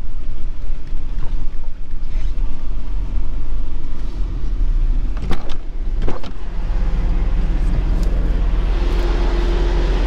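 Ute's engine and road rumble heard from inside the cab while driving slowly over a paddock, a steady low drone. A couple of sharp clicks come about five and six seconds in, after which the drone evens out and a steady hum joins it near the end.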